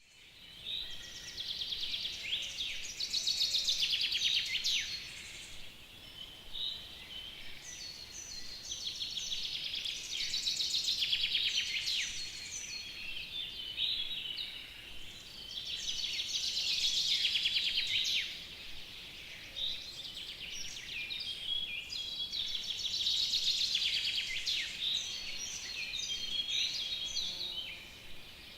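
Songbirds singing in spring: a long, fast trilling song comes back about every six to seven seconds, with shorter chirps and whistled notes between.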